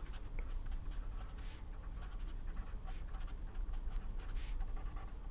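Pen writing, a quick run of short scratchy strokes, over a steady low hum.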